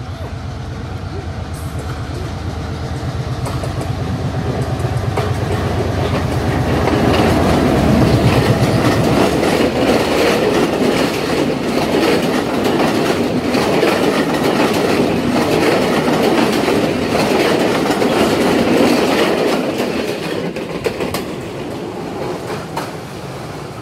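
Class M6 diesel locomotive approaching with its engine throbbing and growing louder until it passes about eight seconds in. Passenger carriages then roll past with a steady clickety-clack of wheels over the rail joints, fading near the end as the last coach goes by.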